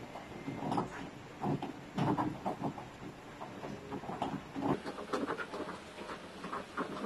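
Fingertips rubbing and patting a thick whipped-soap lather on the face: a run of small, irregular wet squishing and clicking sounds, busier in the second half.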